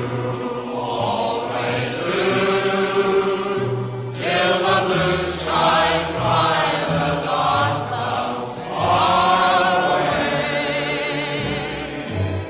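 Background music: singing voices holding long notes with vibrato, in phrases of a few seconds each.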